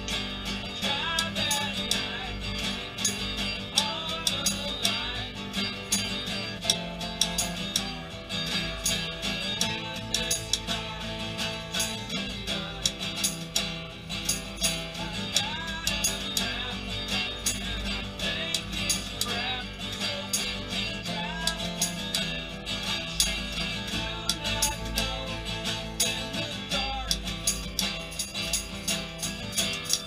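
Acoustic guitar strummed under a sung vocal, with a dense, irregular clatter of typewriter key clicks as percussion, all heard through a single camera mic.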